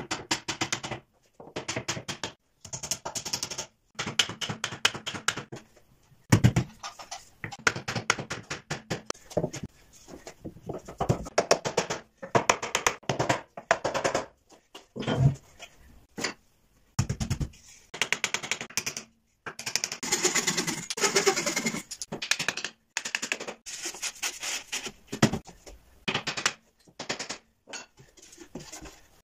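Hammer tapping and knocking on a wooden frame as its joints are driven together, in quick runs of taps broken by short pauses, with wooden parts knocked and shifted on the bench between them.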